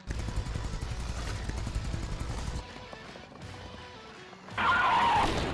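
Radio-controlled toy monster truck driving across concrete, its electric motor and big rubber tyres giving a dense rumble for the first two and a half seconds, over background music. A louder burst of sound comes near the end.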